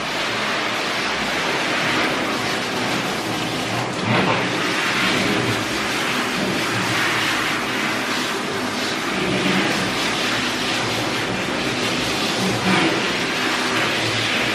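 Water spraying from a handheld hose nozzle onto a dog's coat and the stainless-steel tub: a steady rushing hiss that briefly swells louder now and then.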